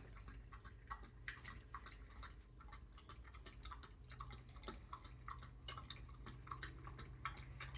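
Faint, irregular wet clicks of a puppy lapping and eating a soupy dinner from a bowl.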